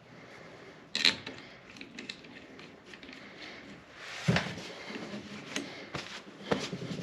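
Metal parts knocking and clinking as a ring gear is handled and seated on a differential carrier: one sharp knock about a second in, then several more knocks and scrapes in the second half.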